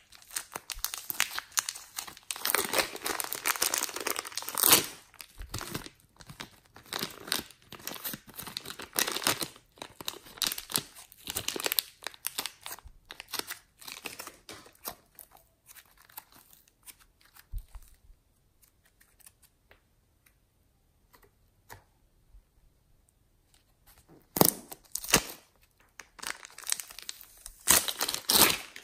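Thin plastic wrapper crinkling and tearing as it is peeled by hand off a ball of soft modeling clay. The noise goes quieter and sparser midway, then comes back in two loud crinkling spells near the end as a second clay wrapper is handled.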